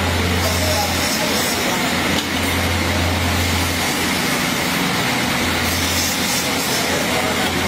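Electric bench grinding wheel running with a steady motor hum while a steel surgical-scissors part is pressed against it, giving a continuous grinding hiss.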